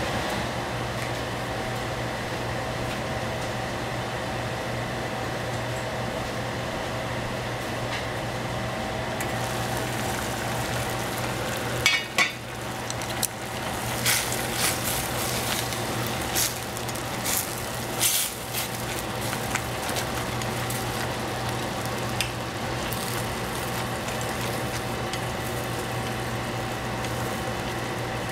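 Cabbage and broth simmering in a stainless-steel saucepan over a gas burner, with a steady low hum underneath. About twelve seconds in the metal lid clatters as it comes off, then wooden chopsticks tap and scrape against the pot several times as the vegetables are stirred.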